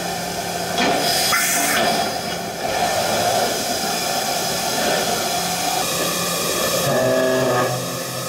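Mazak Integrex J-300 CNC multi-tasking machine end-milling a metal workpiece: a steady hiss of cutting and coolant spray over a humming tone from the spindle and cutter. A brighter rush of hiss comes about a second in, and about seven seconds in the hum changes to a different, steadier set of tones.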